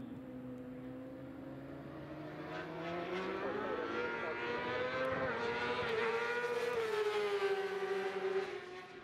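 Racing superbike engines at high revs. The engine note climbs and gets louder over the first several seconds, then sinks in pitch as the bikes pass and fades near the end.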